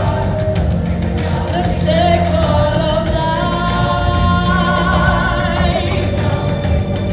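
Choir singing over recorded show music, the voices holding long notes; a high held note wavers with vibrato through the middle.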